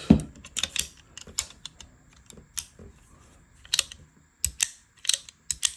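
Action of a Remington New Model Army cap-and-ball revolver being worked after the cylinder is fitted: a run of irregular sharp metal clicks as the hammer is cocked and the cylinder turns, checking that the chambers line up.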